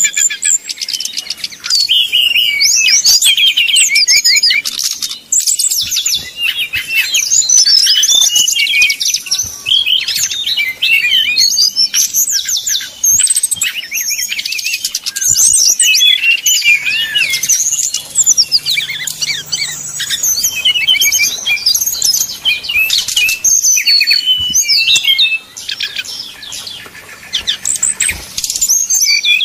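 Brown-chested jungle flycatcher (SRDC) singing in its combative 'fighting' mode: a rapid, dense run of high chirps, trills and quick gliding notes with only brief pauses, softer for a couple of seconds near the end.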